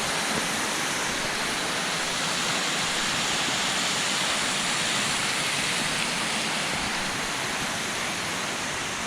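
Waterfall rushing: steady white-water noise with no breaks, easing off slightly near the end.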